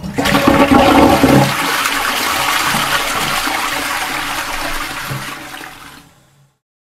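Bucket of water poured into a toilet bowl to flush it: a sudden gush, loudest in the first second and a half, then a steady rush of water draining away that fades out about six seconds in.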